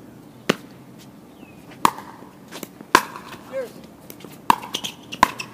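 Pickleball paddles striking a hard plastic pickleball during a doubles rally: five sharp pops, spaced about a second apart, with the last two coming closer together.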